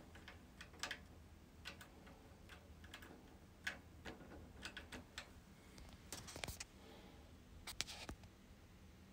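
Faint, irregular clicks of the Sansui 800 receiver's front-panel lever switches being flipped by hand, with a quick run of clicks about six seconds in.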